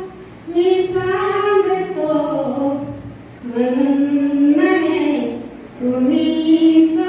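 A woman sings a Marathi Buddhist devotional song (Buddha geet) without accompaniment. She holds long, drawn-out notes in three phrases, with a brief breath between them.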